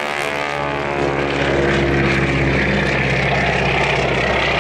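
Propeller-driven Grumman Ag-Cat biplane's piston engine and propeller droning steadily in an aerobatic pass, getting louder about a second and a half in.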